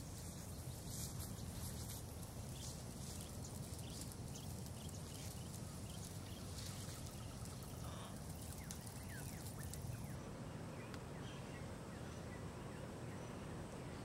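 Outdoor natural ambience: a steady low rumble and hiss with faint, distant bird chirps, most of them in the middle stretch.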